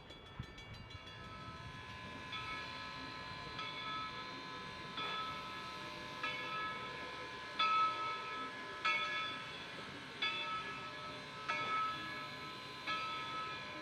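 Locomotive bell ringing in a slow, even rhythm, one stroke about every second and a quarter, starting about two seconds in, over the low running noise of the train.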